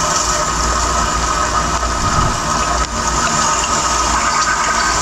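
Wire EDM auto-threading: a steady rush of the water jet shooting from the upper guide down to the lower guide to carry the brass wire through, with the machine's pump running.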